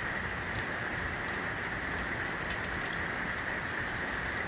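Steady even hiss with a few faint light ticks.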